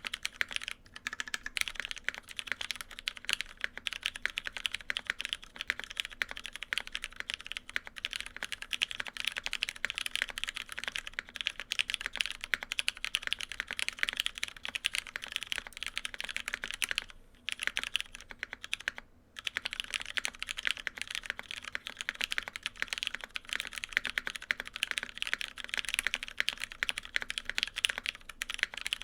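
Continuous fast typing on a gasket-mounted mechanical keyboard with lubed Cherry Hyperglide MX Brown tactile switches, a full aluminium plate and GMK keycaps. The keystrokes are a dense stream of clicky clacks, with two brief pauses a little past halfway.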